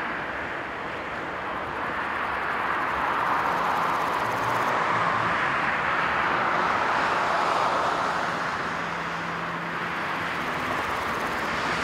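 Airbus A330-300 airliner's Rolls-Royce Trent 700 turbofans at take-off thrust as it lifts off and climbs away: a steady rushing jet noise that swells slightly a couple of seconds in.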